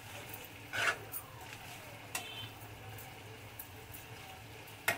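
Steel spoon scraping and clacking against a steel kadhai while stirring thick, sizzling bottle gourd (lauki) halwa, the loudest scrape about a second in and a couple more near the end.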